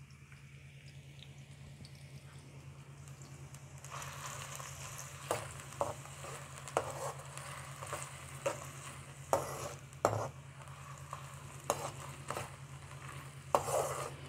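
Sliced onions sizzling in hot oil in a frying pan, being lightly fried. The sizzle grows louder about four seconds in as a slotted spoon starts stirring them, knocking and scraping against the pan every second or so.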